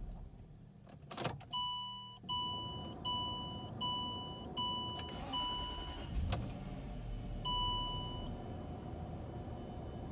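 Land Rover LR3's electronic warning chime sounding six times in quick succession, then once more after a short pause, with a sharp click just before the chimes and another in the pause.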